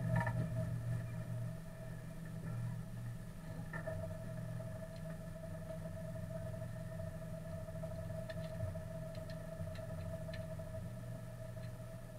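Honda Civic Type R rally car's four-cylinder engine idling steadily, heard from inside the cabin, with a few faint clicks near the end.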